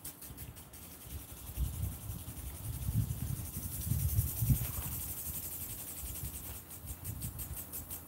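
Insects chirping in a fast, even pulsing rhythm, with the hiss of water spraying from a garden hose strongest about halfway through. Low rumbling runs under the middle part.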